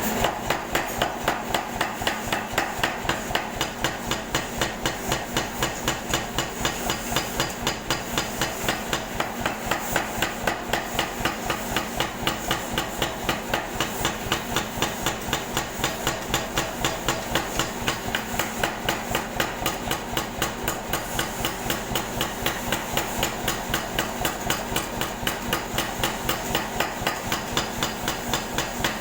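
Air hammer striking in a steady, even rhythm, about three blows a second.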